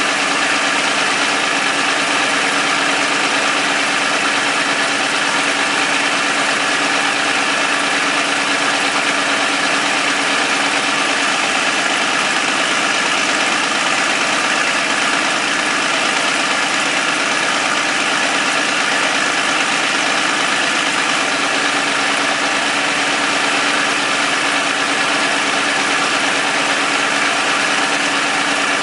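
Vintage Caterpillar D13000 diesel engine running steadily at an even speed.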